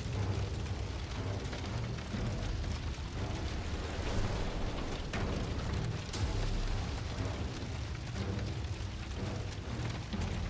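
Cartoon fire-magic sound effect: a steady low rumble of flames, with two sharp cracks about five and six seconds in, over background music.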